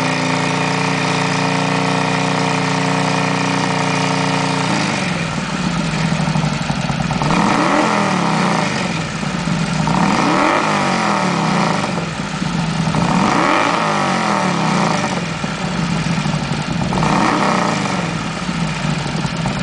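Harley-Davidson XR1200's 1200 cc V-twin running through a D&D aftermarket exhaust. It holds steady engine speed, settles back to idle about five seconds in, then is revved four times with the throttle, about three seconds apart, each rev rising and falling back to idle.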